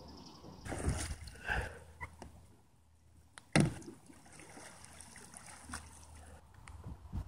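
Water splashing around a kayak as it is tipped over in an attempted roll. There are a few splashes about a second in and one sudden, louder thump about three and a half seconds in.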